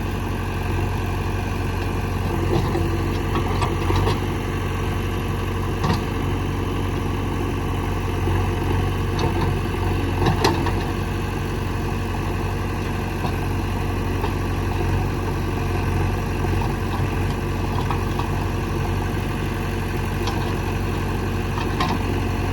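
JCB 3DX backhoe loader's diesel engine running steadily, with a few short knocks about six and ten seconds in.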